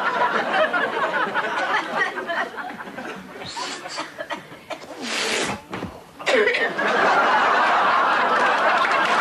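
Live audience laughing, then breaking into steady applause about two-thirds of the way through, after a quieter stretch.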